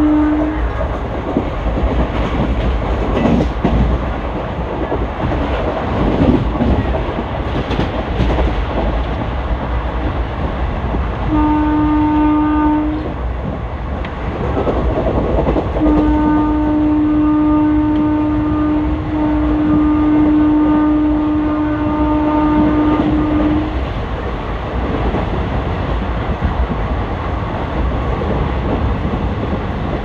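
WAP4 electric locomotive's horn sounding over the steady rumble and wheel clatter of the running ICF coaches: a blast that ends just after the start, a short blast about eleven seconds in, and a long blast of about eight seconds from around sixteen seconds, with a brief break partway through.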